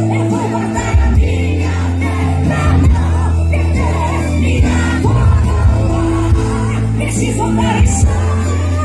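Live gospel music: a band with a heavy, steady bass line under a wavering melody line.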